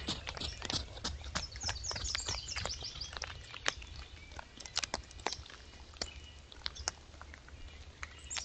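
A deer walking by close to the microphone: scattered sharp clicks and snaps of hooves in leaf litter and dirt, thickest at first and thinning out, over a steady low rumble. A bird trills briefly about two seconds in.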